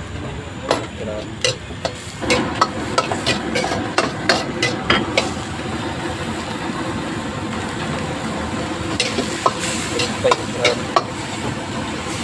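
Steel ladle scraping and clanking against a steel wok during stir-frying, over steady sizzling. Quick strokes come in a busy run through the first five seconds or so, pause, then start again briefly near the end.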